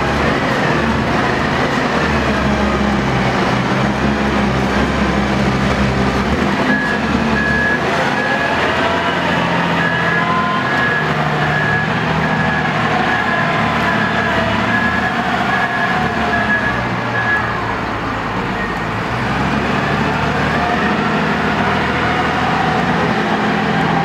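Diesel engine of a XIAJIN XJ976H block-handler wheel loader running under load, its pitch rising and falling as it picks up and carries a large stone block. A high beeping tone repeats from about a quarter of the way in until a little past two-thirds of the way through.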